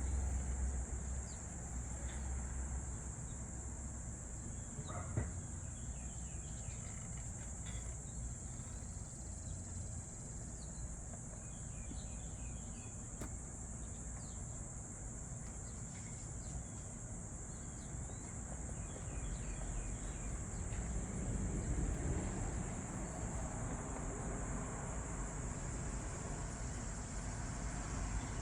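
Steady high-pitched chorus of insects such as crickets, with a low rumble underneath and a single sharp knock about five seconds in.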